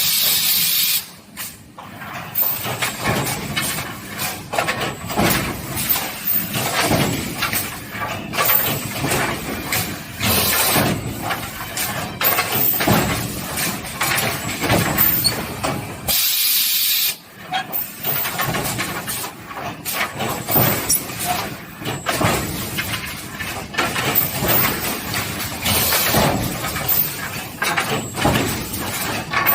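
Automatic wooden pallet deck nailing machine running: a continuous clatter of knocks from the nailing head and moving boards, with hissing bursts of air near the start and again about halfway through.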